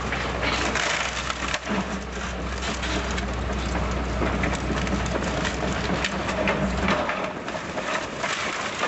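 A computer being crushed under heavy machinery: dense crunching and cracking of plastic and metal over a steady low engine hum. The engine hum drops away about seven seconds in.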